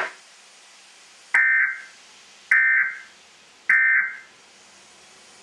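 Emergency Alert System end-of-message signal: three short bursts of digital SAME data tones, about a second apart, each starting with a click. It marks the close of the severe thunderstorm warning broadcast.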